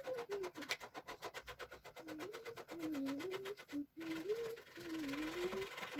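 A person softly humming a wandering tune, over a rapid, even clicking that stops about four seconds in.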